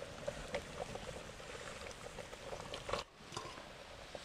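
Pot of liquid bubbling on a wood fire, with small pops throughout. There is one sharp knock about three seconds in.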